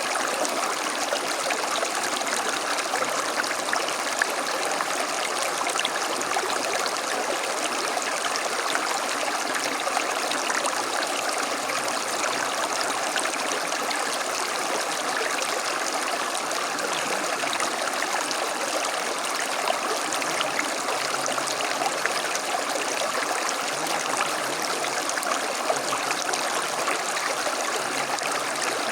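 A small stream flowing over stones, a steady burbling and rushing of water.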